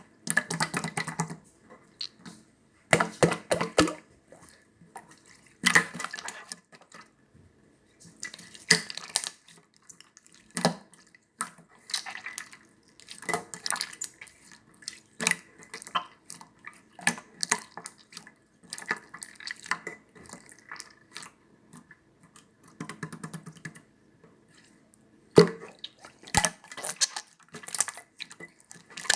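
Clear, transparent slime being squeezed, stretched and poked by hand, making wet squishing sounds and sharp little pops and clicks in irregular bursts with short pauses between them.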